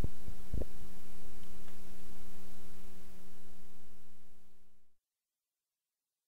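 Steady electrical hum with a faint hiss, with two brief low thumps in the first second. It fades out to dead silence about four to five seconds in.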